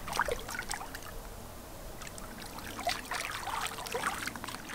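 Water splashing and trickling in small, irregular splashes and drips.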